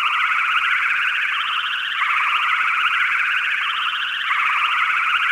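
Sci-fi flying-saucer sound effect: a loud, high, fast electronic warble that shifts its pattern about every two seconds.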